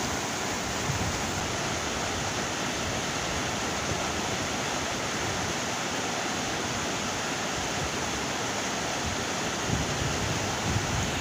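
Fast, silty glacial meltwater river rushing over rocks: a steady, even rush of water.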